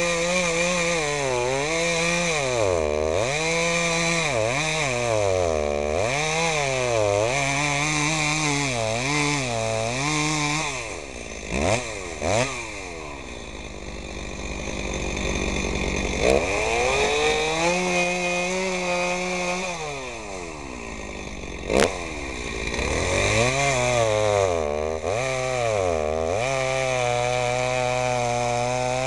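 Stihl MS 290 Farm Boss two-stroke chainsaw cutting through a log, its engine pitch rising and falling again and again as the throttle is worked and the chain bites into the wood. Near the middle it drops back to a lower speed with a couple of sharp knocks, then revs up and cuts again, holding a steady high pitch near the end.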